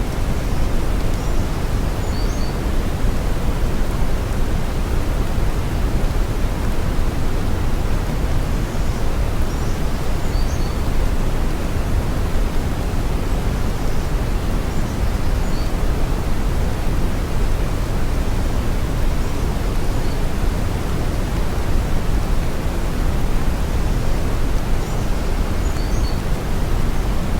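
Steady brown noise: a deep, even hiss with most of its weight in the bass, thinning out toward the highs, unchanging throughout.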